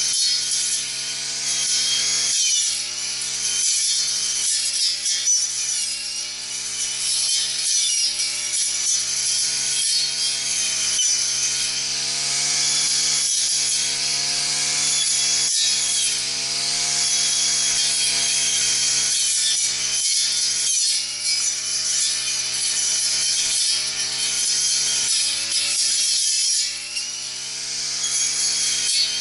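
Engine-powered brush cutter running at high speed while cutting grass, with a steady high hiss from the cutting. The engine note sags briefly several times as it takes load in the grass.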